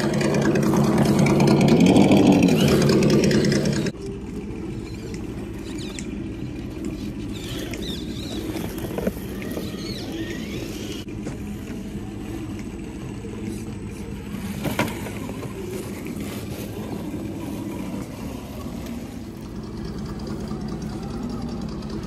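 Electric motors and gearboxes of RC rock-crawler trucks whining steadily as they crawl over tree roots and a log. Louder for the first four seconds, then dropping suddenly. Two short knocks of the trucks against wood come near the middle.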